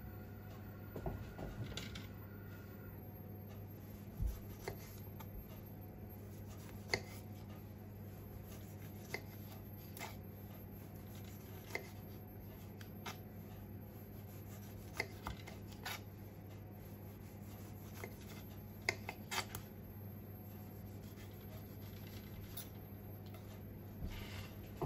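Kitchen knife slicing a clementine into rounds on a plastic cutting board. The blade gives a sharp click against the board every second or two, at an uneven pace, over a steady low hum.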